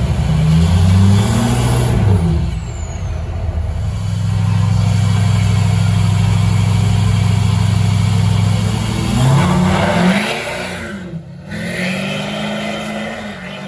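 Engine revved hard: it climbs, eases off, then is held at high revs for about five seconds. It rises once more and drops back to a lower steady run near the end.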